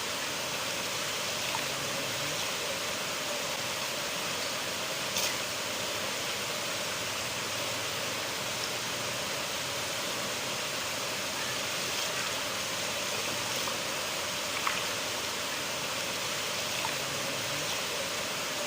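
River water flowing steadily, an even rushing with no change, broken only by a couple of faint ticks about 5 and 15 seconds in.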